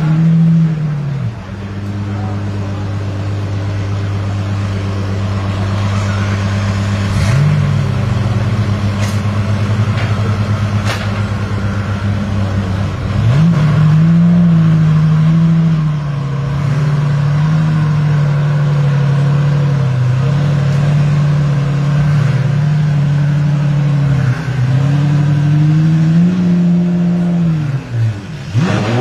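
Apollo Intensa Emozione's naturally aspirated V12 running at idle after a short rev blip at the start, with another brief blip a few seconds in. From about halfway it is held at raised revs, dipping and rising a few times before dropping back near the end.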